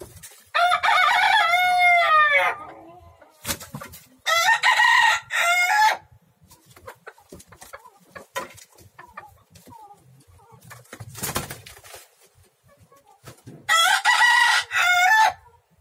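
A rooster crowing three times: one long crow about half a second in, another about four seconds in and a third near the end. Faint scuffles and wing flaps from the fighting birds are heard between the crows.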